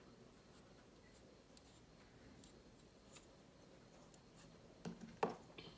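Faint small clicks and rubbing as a tube of acrylic paint is handled and its cap twisted, then two sharp knocks near the end as the tube is set down on the wooden desk.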